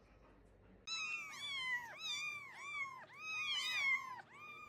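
A cat meowing over and over in quick, high-pitched calls, each rising and then falling, starting suddenly about a second in.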